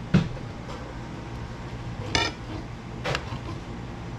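Kitchen knife clinking against a ceramic plate while raw cod fillet is cut into nugget-sized pieces: three short sharp clinks, the first and loudest just after the start, the others about two and three seconds in.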